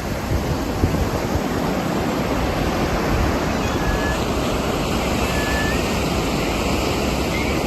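Strong typhoon wind rushing steadily and buffeting the microphone, with gusty low rumbling.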